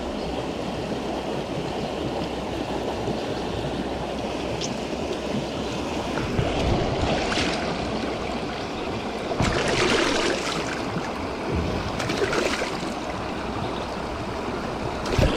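Creek water rushing steadily, with a few brief rustles and clicks in the second half and a sharp knock near the end.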